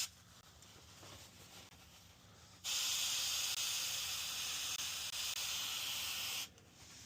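Mold-control spray hissing out of its can in one long, steady spray that starts a little under three seconds in and lasts almost four seconds.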